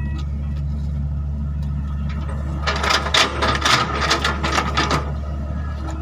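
Hydraulic excavator's diesel engine running steadily with a low hum. From a little before halfway until near the end there is a spell of crackling, clattering noise.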